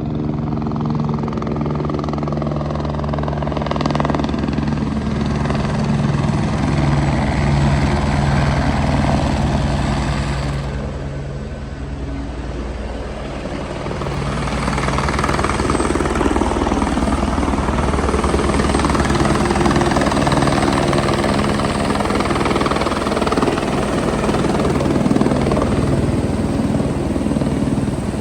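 Helicopter coming in close, its rotor beating steadily over the turbine's drone. The sound eases briefly about halfway through, then grows loud again.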